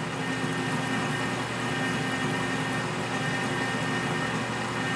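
Metal lathe running steadily while a reamer cuts in the bore of a spinning stainless steel part, the final reaming pass that brings the hole to size.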